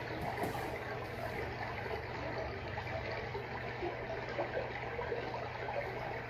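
Freshwater aquarium water trickling and bubbling steadily, over a low steady hum.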